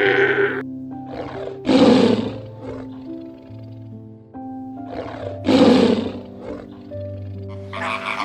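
A tiger roars twice, a short, harsh roar about 2 seconds in and another about 5.5 seconds in, over soft background music.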